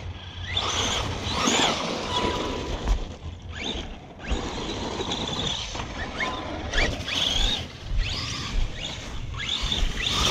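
Arrma Big Rock Crew Cab RC monster truck's brushless motor whining, the pitch sweeping up again and again as the throttle is pulled in short hits, over a steady low rumble of tyres and wind.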